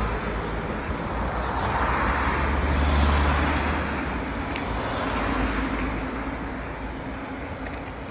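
Street traffic: cars driving past, their noise swelling to a peak about three seconds in and again more weakly a couple of seconds later, then easing off.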